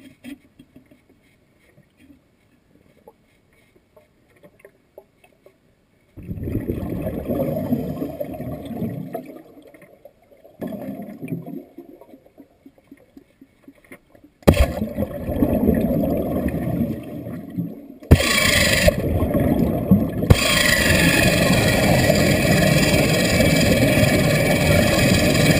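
Air-powered drill running underwater, boring into a pool's gunite floor, with its exhaust air bubbling off the tool. It starts suddenly about a third of the way in, steps up in level a few seconds later, then runs steadily. Before it there is a long stretch of near silence and two shorter bursts of noise.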